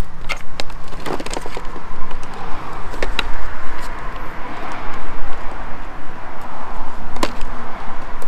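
Screwdrivers prying the push-in clips of a car grille surround out of a plastic front bumper, giving a handful of sharp clicks and snaps, one about a second in, a quick pair around three seconds and one near the end, over steady background noise.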